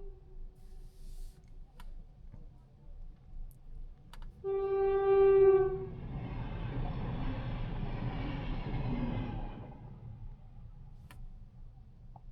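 A horn sounds once, a single steady note held about a second and a half, a few seconds in. Right after it comes a rushing sound of a vehicle passing for about four seconds, which then fades, over a low road rumble.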